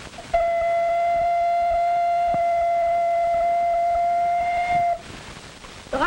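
Ocarina sounding one long steady note, held level for about four and a half seconds before stopping suddenly.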